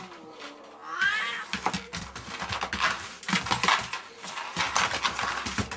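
A cat giving one drawn-out, wavering yowl about a second in, then a string of hisses and spits mixed with sharp scuffling clicks. This is a defensive warning from a cat rebuffing a playful young dog.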